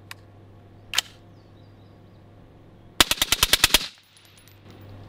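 Suppressed full-auto AR-pattern rifle firing one short burst of about ten rounds, about three seconds in. A sharp metallic click comes about a second in, before the burst.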